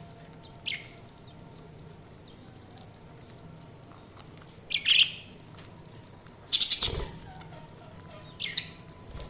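Budgerigars chirping in short, scattered calls, four in all, a second or more apart; the loudest and harshest comes about seven seconds in.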